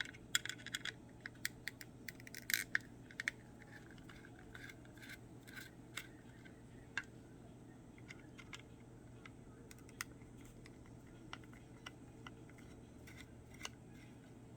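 Small screwdriver clicking and scraping against the plastic housing of a camera while taking out small screws, with a quick run of clicks in the first few seconds, then scattered single ticks.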